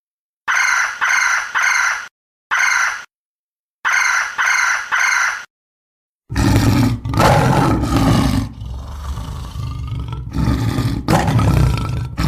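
Wild animal calls. First, short, high calls come in a group of three, then one, then three, each separated by silence. About halfway through, a deep, loud roaring call takes over and runs on with breaks.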